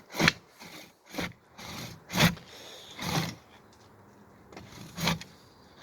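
Handsaw cutting through wood with slow strokes about once a second, the loudest a little over two seconds in. The strokes pause for about a second before a last one near the end.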